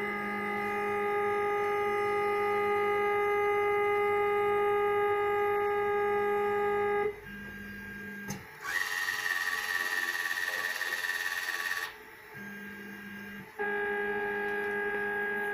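Homemade vending machine's drive motors running through a delivery cycle: a steady, pitched motor whine as the lift travels, stopping about seven seconds in. A harsher buzz follows for about three seconds as a servo turns a wire product spiral, then the whine starts again near the end.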